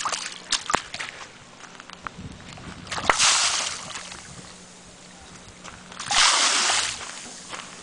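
A stranded Humboldt squid splashing in shallow seawater: two short splashes, about three seconds in and again about six seconds in, with a few light water clicks before them.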